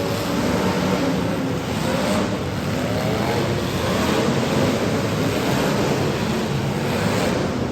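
Several demolition derby cars' engines running and revving at once, their pitches rising and falling over a constant wash of noise.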